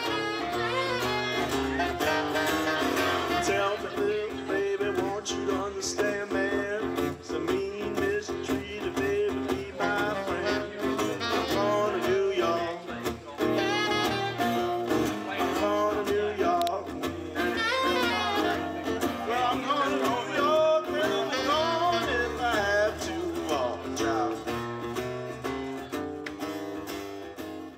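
Live acoustic guitar and saxophone playing a bluesy tune, fading out near the end.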